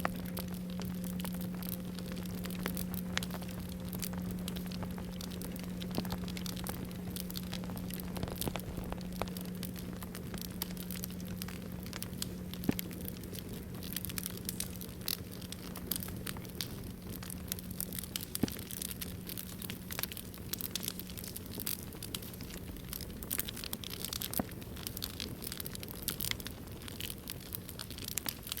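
Campfire crackling with many sharp snaps, under the low ringing tone of a struck singing bowl slowly fading away. The bowl's higher overtone dies within the first few seconds, and the low hum is nearly gone about twenty-five seconds in.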